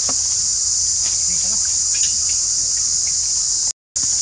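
Steady, high-pitched drone of insects such as cicadas or crickets, breaking off for a moment near the end.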